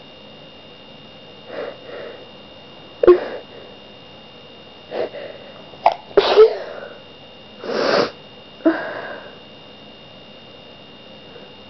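A person sneezing several times in quick succession, with sniffs and breaths between the sneezes. The sharpest, loudest sneezes come about three, six and nine seconds in.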